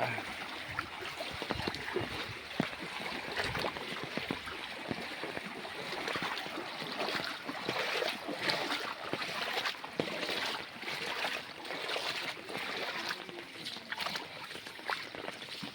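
Floodwater running over a road: a steady rush of water with many small splashes and ticks scattered through it.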